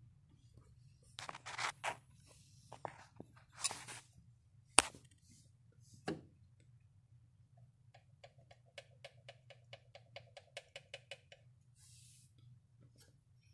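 Distributor rotor and centre shaft rocked by hand, giving irregular clicks and knocks, then a quick run of about six light ticks a second: the worn distributor shaft rattling in its bush.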